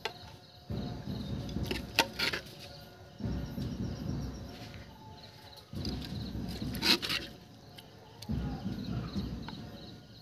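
A metal spoon scooping duck curry out of a clay pot and clinking against the clay pot and plate, a few sharp clicks, the loudest about 7 seconds in. A low rumbling noise runs between them.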